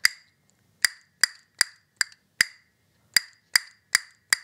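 Castanets struck one finger at a time in a finger drill: single crisp wooden clicks at an even pace of about two and a half a second, with a short pause near the middle.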